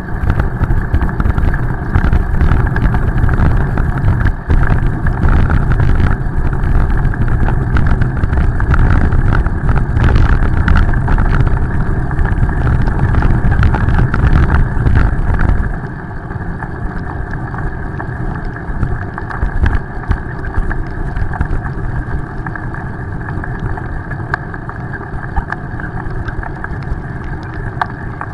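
Wind buffeting a bicycle-mounted camera's microphone, mixed with road noise from riding on wet pavement, played at double speed. It is a loud, steady rumble that drops noticeably about sixteen seconds in.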